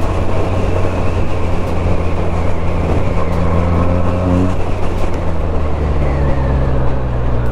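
Benelli TNT 300's parallel-twin engine and exhaust running steadily under way, heard from on the bike. The engine note drops a step about four and a half seconds in.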